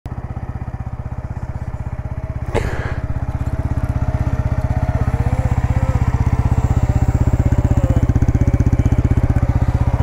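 Yamaha YZF-R125's 125 cc single-cylinder four-stroke engine idling steadily through a full Akrapovic exhaust system. A sharp knock comes about two and a half seconds in, and the idle grows slightly louder after it.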